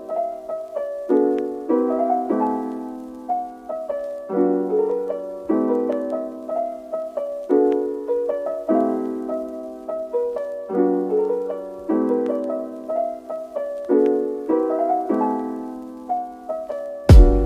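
Background music: soft piano playing gentle sustained chords. Just before the end, a loud drum beat with heavy bass comes in.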